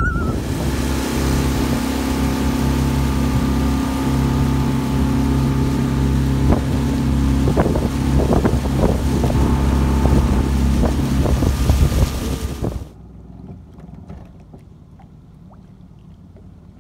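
Small aluminum boat's outboard motor running at a steady speed, with wind and rushing water over it; the sound cuts off suddenly about 13 seconds in, leaving faint, quiet lakeside ambience. A common loon's wavering call trails off at the very start.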